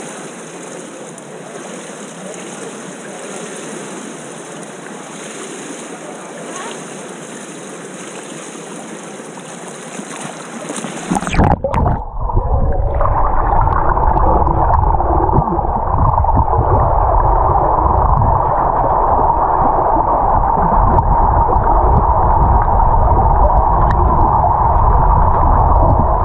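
Water lapping and the noise of an indoor pool hall, heard through a camera held at the water surface. About eleven seconds in, the camera goes under water and the sound turns into a muffled underwater rumble with a steady hum, louder than before.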